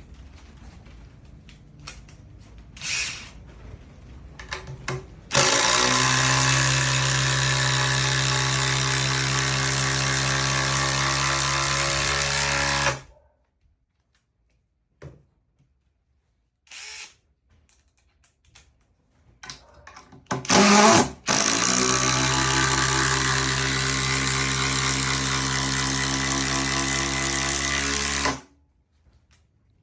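Cordless DeWalt impact driver run in two long, steady bursts of about seven seconds each. Before and between them come a few brief blips of the trigger.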